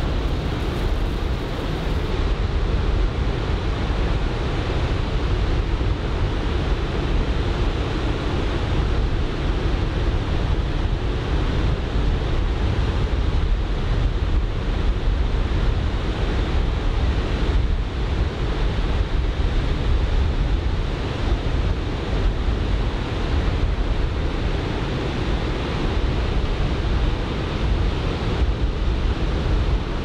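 Ocean surf breaking on the beach in leftover typhoon swell, choppy under an onshore wind, with the wind rumbling on the microphone: a steady rushing noise with no let-up and no distinct events.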